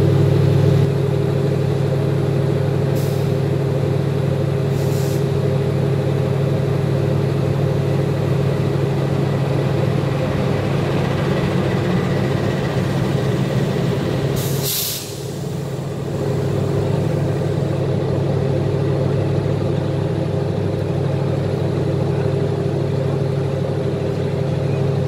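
Diesel-electric locomotive idling, a loud steady engine hum, with short hisses of released compressed air three times, the longest about fifteen seconds in.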